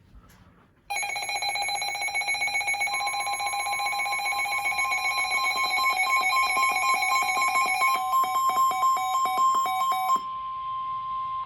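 Weather-radio alert: an electronic alarm beeping in rapid pulses, joined about two seconds in by a steady single tone near 1 kHz, the 1050 Hz NOAA Weather Radio warning alarm tone. The pulsing stops near the end, while the steady tone carries on. It signals that a new warning broadcast is about to begin.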